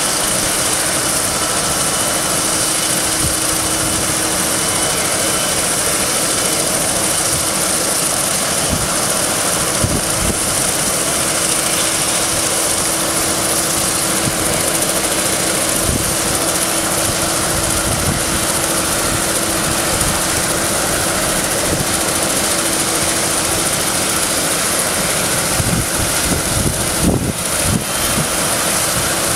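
Turbine helicopter running on the ground with its main rotor turning: a steady rushing noise with a high turbine whine.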